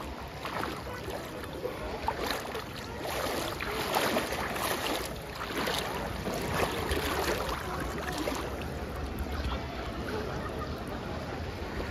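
Seawater washing and splashing in the shallows, irregular surges over a steady low rumble.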